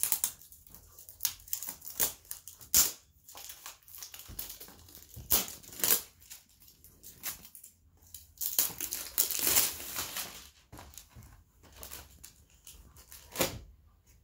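Clear plastic shrink wrap being torn and crumpled off a cardboard paint-set box, with the box handled and opened. Irregular sharp crinkles and crackles, densest for about two seconds past the middle.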